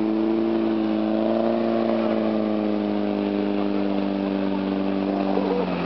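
Volvo Bv 202 tracked carrier's engine running under load as it crawls through mud and water. Its pitch rises slightly about a second in, then sags slowly and drops near the end.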